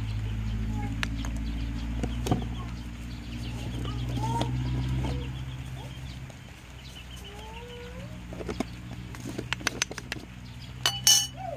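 Chickens clucking in short calls over a steady low hum. Near the end come a few sharp clicks of a metal spoon against the mortar as seasoning is tipped in.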